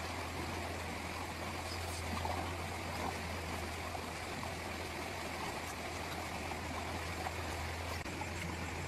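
Steady rushing of a stream, with a constant low hum underneath.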